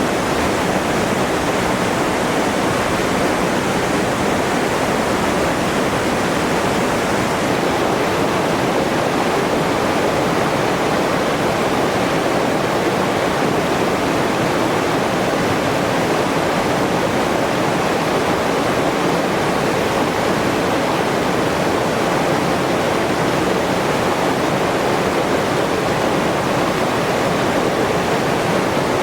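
Steady rush of falling water: a constant, even hiss with no surges or breaks.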